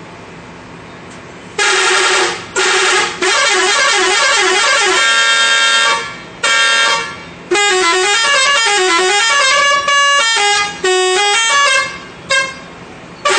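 A bus's telolet musical horn plays a loud tune of several tones that step up and down. It comes in a series of blasts with short breaks, starting about one and a half seconds in, with one more short blast near the end.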